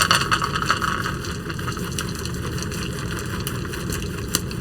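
Chopped pecans poured into a mixing bowl of sugar mixture: a short patter at the start, then a few light clicks over a steady background hum.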